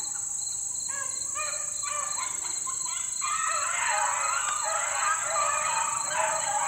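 A pack of beagles baying while running a rabbit's track, several dogs' voices overlapping. The cry grows fuller and louder about three seconds in.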